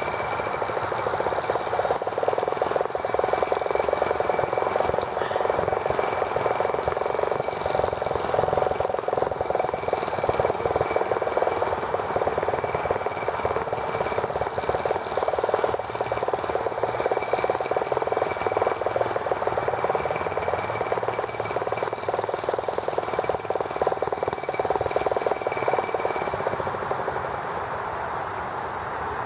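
Small model gasoline engine of a T26 toy tractor running steadily with a fast buzzing rattle. It gets a little quieter near the end.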